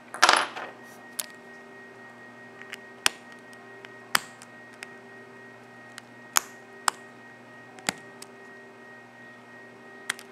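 Hand-handling clatter, then a series of sharp separate clicks and taps of plastic and metal as a resin watch band and its spring bar are pressed into a watch case's lugs. All of it is over a steady low electrical hum.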